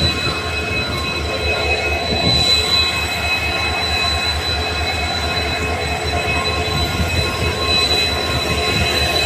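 WDP4D diesel-electric locomotive, a two-stroke EMD 16-cylinder engine, idling close by: a steady low throb with steady high-pitched whines over it.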